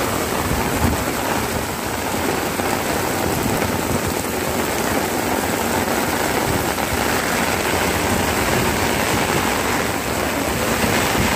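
Heavy rain pouring down steadily, splashing on hard surfaces.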